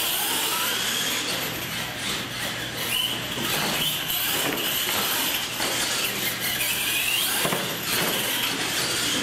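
Electric R/C monster trucks racing flat out on a concrete floor: a high motor and gear whine that rises and falls with the throttle.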